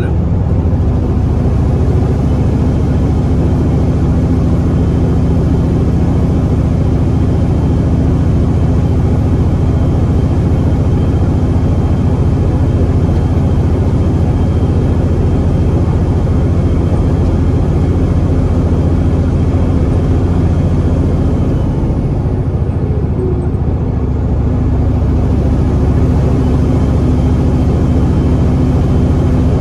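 Peterbilt 389 semi truck cruising at highway speed, heard inside the cab: its Caterpillar C15 diesel runs with a steady low drone over road and tyre noise. The drone eases briefly about three-quarters of the way through, then comes back.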